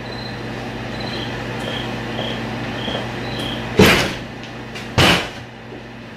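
Lit lightsaber's electronic hum from its sound board, with a faint high pulsing tone over it. Two short, loud swing whooshes come about a second apart near the end.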